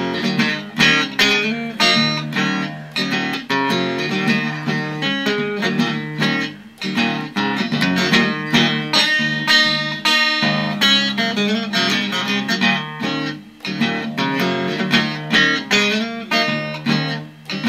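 Solo electric blues guitar playing an instrumental break: a busy, repeating riff of picked and strummed notes, with no singing.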